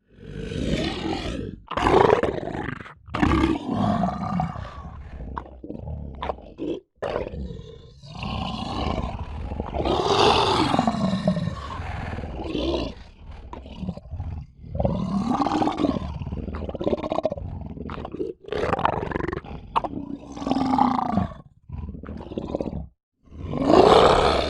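Lion roaring and growling over and over: a string of separate calls, each swelling and falling in pitch, several of them cut off abruptly with brief silent gaps between.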